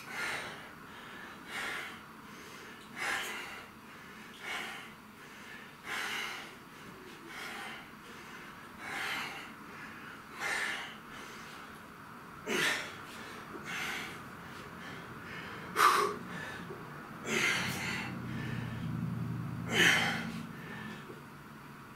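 A man breathing hard through a set of dumbbell hammer curls: a sharp exhale about every one and a half seconds, the later ones louder. Near the end comes a low groan of effort.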